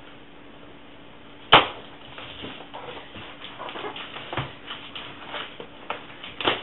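Cardboard shipping box being opened by hand with scissors: a sharp snap about a second and a half in, then irregular scratching, crackling and tearing of packing tape and cardboard flaps, with another sharp snap near the end.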